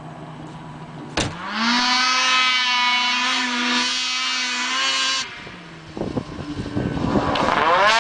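Snowmobile with an MBRP aftermarket exhaust can, running low, then revved up quickly about a second in and held at high revs for several seconds. It drops off about five seconds in, then climbs back to high revs near the end.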